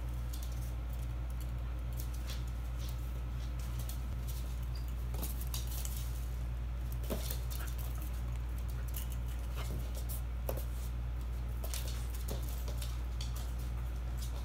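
Two dogs playing on a hard floor: claw clicks, pattering and scuffling, with a few brief squeaks, over a steady low hum.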